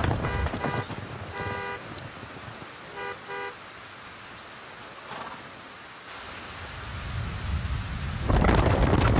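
A horn tooting in short blasts: two quick toots, one longer toot, then two more quick toots. This sits over a rushing noise that fades at the start and swells back loudly near the end.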